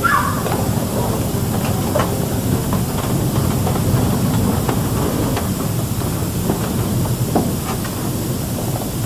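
Steady low rumbling noise with scattered light knocks of footsteps on wooden stage boards.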